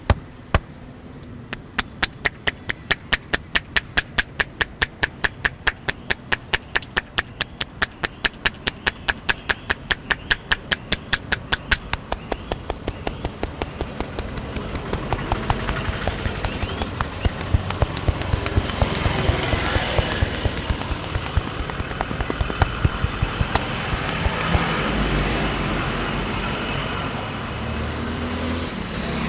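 Rapid, even hand slaps of a head massage, about four to five strikes a second. They are loud at first and fade about halfway through under steady road-traffic noise.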